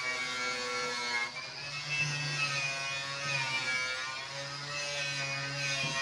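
Electric angle grinder running against the car body's sheet steel. Its motor whine dips and rises in pitch as the disc is pressed into the metal and eased off.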